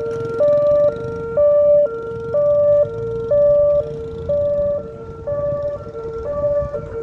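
Ambulance's two-tone hi-lo siren, switching between a lower and a higher pitch about twice a second, growing fainter near the end as it pulls away.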